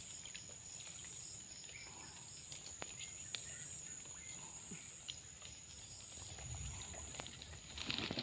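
Steady high-pitched drone of crickets or other insects, with scattered small clicks and light water sounds from people wading in a stream. A louder burst of splashing comes near the end.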